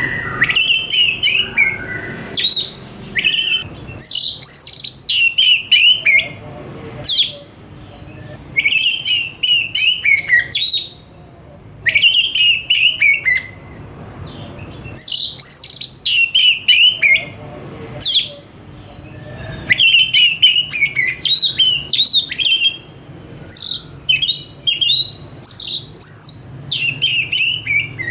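Oriental magpie-robin (kacer) singing in full, persistent song: short phrases of quick, varied whistles and chirps, repeated every second or two with brief pauses.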